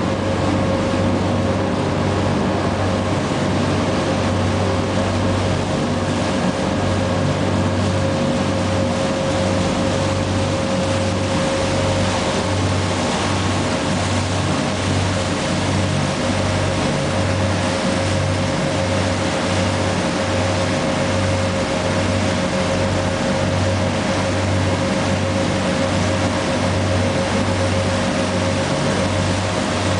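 Sightseeing river boat's engine running steadily at cruising speed: a deep hum that pulses evenly, with a steady whine above it, over the rushing churn of the wake behind the stern.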